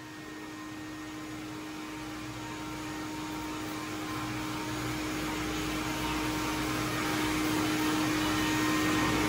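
Pet dryer blower at a dog-wash station running, a steady rush of air through its hose with a steady motor hum, growing gradually louder.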